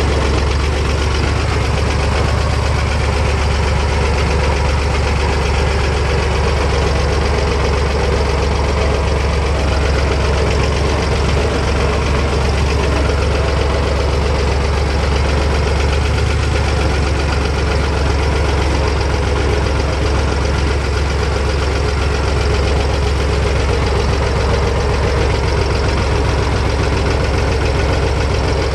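Fendt Farmer 2 DE vintage tractor's engine running steadily with a loud, even low hum, heard from the driver's seat.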